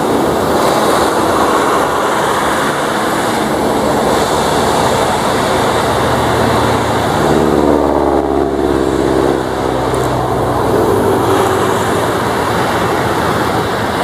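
Twin turboprop engines of NC-212 aircraft running on the ground while taxiing, a steady propeller drone with a pitched hum that swells and bends around the middle as an aircraft passes close.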